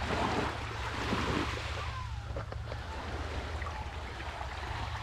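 Sea waves washing onto the shore, one surging louder over the first couple of seconds before settling to a steadier wash, with wind rumbling on the microphone.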